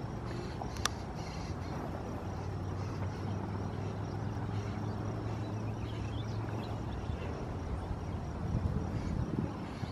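Outdoor background dominated by a steady low hum, with a single sharp click about a second in and a few faint high chirps around the middle.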